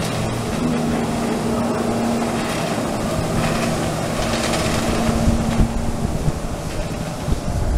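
Personal watercraft engine running hard to power a Flyboard through its hose, a steady drone under the hiss of water jets and spray, with wind on the microphone.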